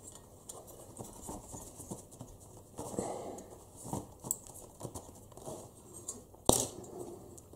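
Faint scraping and small clicks of a hobby knife and hands working at a glued-in part in a diecast model car body, with one sharp click about six and a half seconds in.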